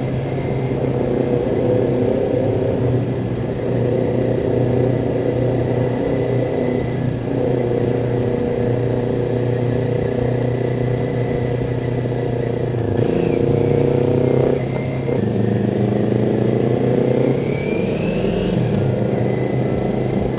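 Kawasaki Ninja 400 parallel-twin engine running through an Akrapovic slip-on exhaust while riding, a steady engine note. Its note dips briefly about two-thirds through, then climbs near the end as the bike accelerates.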